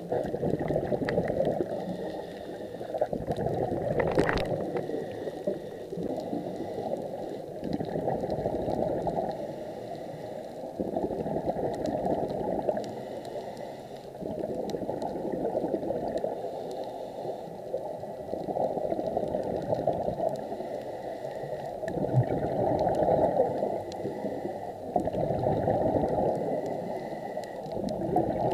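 Muffled underwater bubbling that swells and fades every three to four seconds, typical of a scuba diver's exhaled breath bubbling from the regulator.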